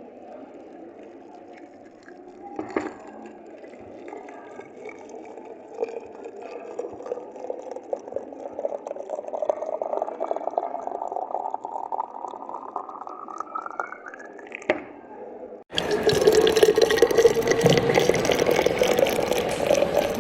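A container being filled with running water, the pitch of the filling rising steadily as it fills up. About three-quarters of the way through it cuts off abruptly into a much louder, busy din.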